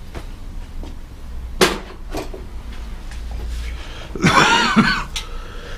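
A sharp click of something handled at the bike stand about one and a half seconds in, with a few fainter ticks, then a man's brief throaty vocal sound a little after four seconds, over a low steady hum.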